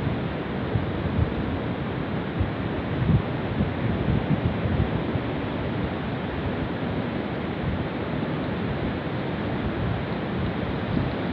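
Steady rush of flowing water, with wind buffeting the microphone in low gusts.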